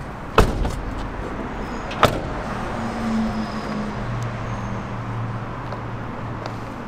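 A van door slams shut, and a second sharp knock follows about a second and a half later. After that comes a steady low vehicle hum.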